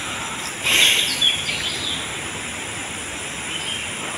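A few short bird chirps about a second in, over steady outdoor background noise with a faint, steady high-pitched hum.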